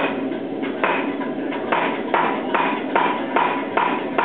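Hammer blows on metal, each with a bright ringing note, in a steady run that speeds up to about two or three blows a second.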